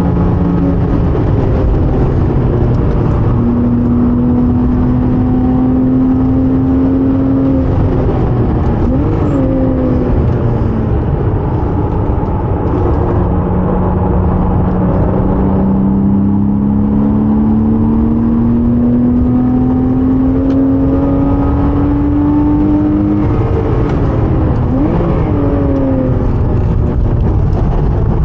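Porsche 987.2 Cayman S flat-six pulling hard at speed: the engine note climbs slowly and steadily over several seconds, then drops away sharply twice, over heavy road and wind noise.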